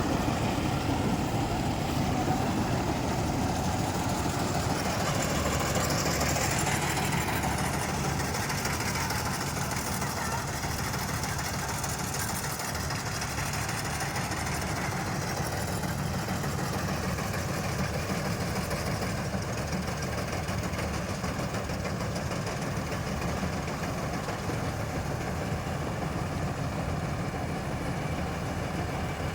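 John Deere combine harvester's diesel engine running steadily, a little louder in the first several seconds.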